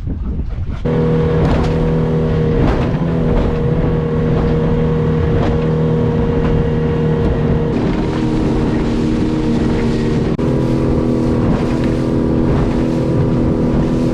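Fishing boat's motor running steadily under way, a loud even drone that starts suddenly about a second in. Its note shifts slightly twice in the second half as the revs change.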